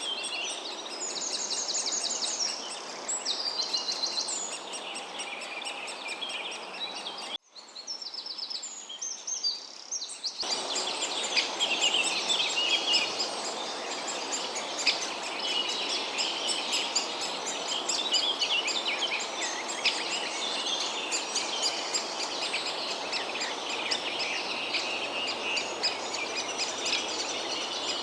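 Several birds singing and calling at once, a dense mix of chirps and trills. The sound changes abruptly about seven seconds in and again about ten seconds in.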